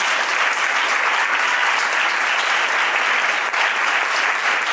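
Audience applauding, dense and steady, with the two women on stage clapping along.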